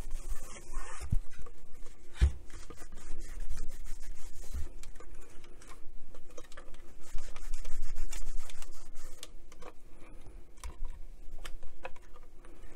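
Cloth rubbing over the covered case of a Roberts RIC1 portable radio as it is polished. The rubbing comes in spells, loudest around eight seconds in, with a few dull knocks as the case is turned and handled.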